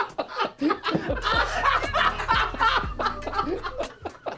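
Several people stifling laughter, snickering and chuckling into their hands, loudest in the middle, over background music with a steady beat.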